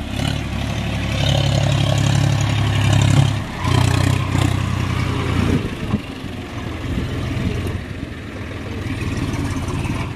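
John Deere 4WD tractor's diesel engine revved hard for about five and a half seconds, with a brief dip about three and a half seconds in, then easing to a lower, steadier run; it is labouring under load as the stuck tractor tries to pull free.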